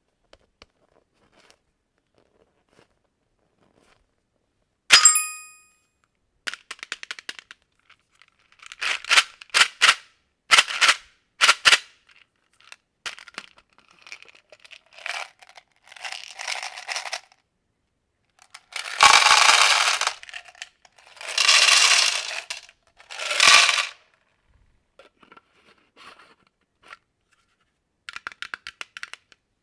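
Close-up handling of candy and plastic packaging: a single sharp click with a short ringing tail about five seconds in, then runs of quick clicks and rattles, and later three loud crackly rushes of a second or two each.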